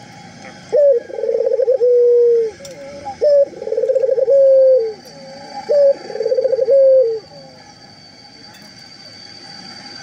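Puter (Barbary dove) cooing three times, about two and a half seconds apart: each coo is a sharp opening note, a rolling trill and a held low note. A faint steady high whine runs under the last part.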